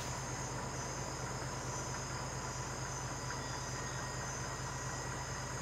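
Steady night jungle ambience: a continuous high insect drone over a low, even hum.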